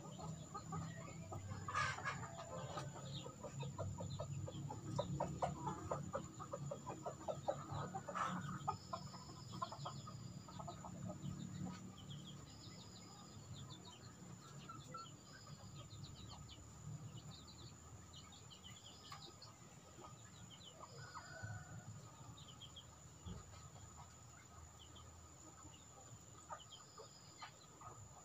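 Native chickens (ayam kampung) clucking in short rapid runs, busiest in the first dozen seconds and sparser after, with small high chirps scattered through the latter part.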